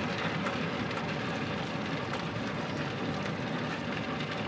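Heavy vehicle engine running hard, a steady noisy rumble with rattling.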